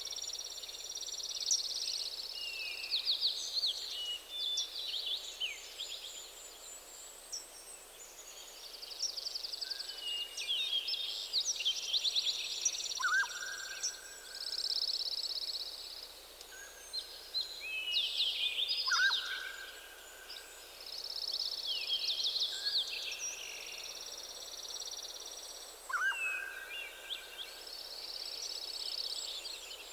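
Several songbirds singing over one another: high trills, chirps and quick whistled phrases. A lower, drawn-out whistle comes in three times.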